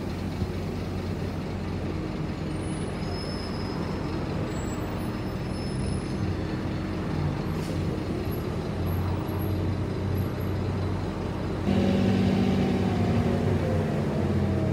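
Scania K230UB city bus heard from inside the cabin: its rear-mounted diesel engine runs steadily with a low hum. About three-quarters of the way through the engine suddenly gets louder, and its pitch then falls slowly.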